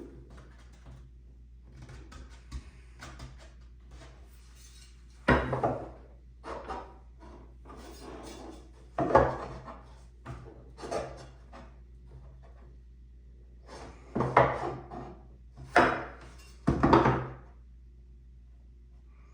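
Wooden drawer parts and clamps being handled and set on a workbench: irregular knocks and clatters of wood and metal, with a handful of louder knocks spread through.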